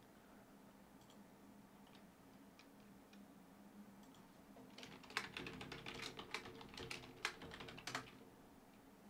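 Typing on a computer keyboard: a quick run of keystrokes starting about five seconds in and lasting about three seconds, with a few faint single clicks before it.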